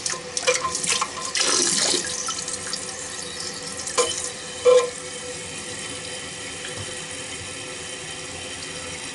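Water running into a toilet tank as it refills after a flush, splashier for the first couple of seconds and then a steady rush. Two short louder sounds come about halfway through.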